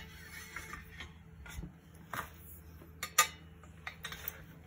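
A steel bolt pushed by hand through the lined-up holes of a steel post and bracket: light metal rubbing with a few clinks, the sharpest about three seconds in.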